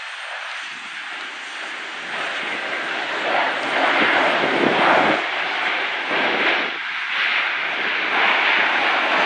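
Twin jet engines of a United Airlines Airbus A319 running at high power as it rolls down the runway, a rushing roar that grows steadily louder and swells unevenly.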